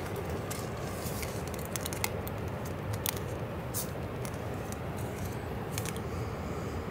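Plastic blister packaging of a head net being handled on a crinkly emergency bivy: a run of sharp crinkles and clicks. A steady low rumble lies under it.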